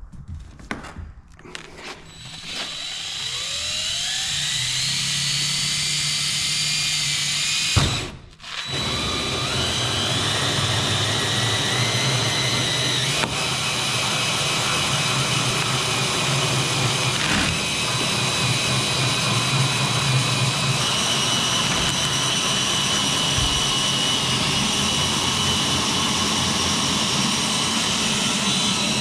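Power drill drilling a hole in a plastic holding tank for a grommet fitting: the motor spins up with a rising whine, stops briefly about eight seconds in, then runs steadily again for the rest of the time.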